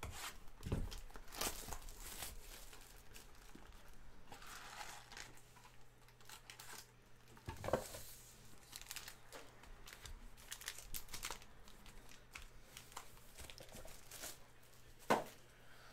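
Foil-wrapped trading-card packs crinkling and rustling as they are handled, pulled from cardboard boxes and stacked, with two sharp knocks, about eight seconds in and near the end.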